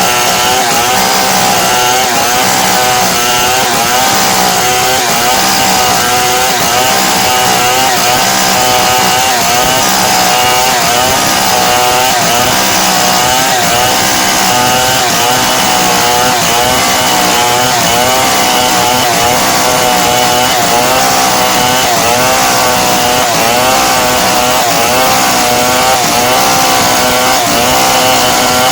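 Two-stroke chainsaw running at high revs without a break while cutting wood lengthwise into beams and planks, its engine pitch wavering slightly as the chain bites and eases in the cut.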